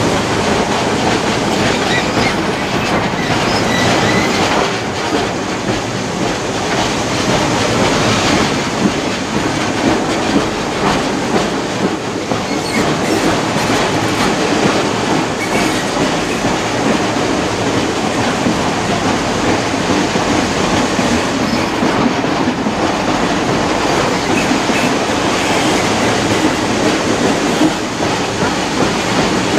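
A heritage passenger train running on the rails, heard from an open carriage window: a steady rolling rumble of wheels on track, with scattered clicks.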